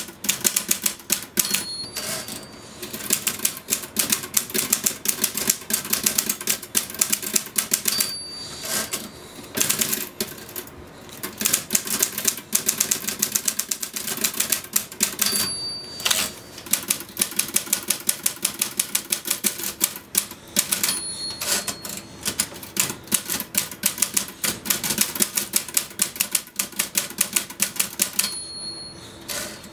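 Typewriter being typed on rapidly, a dense clatter of key strikes. Its margin bell dings five times, about every six to seven seconds, each ding followed by a short break in the typing at the end of a line.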